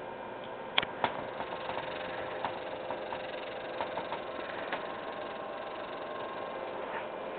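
Steady mechanical hum with a faint hiss, broken by two sharp clicks about a second in and a few fainter ticks later.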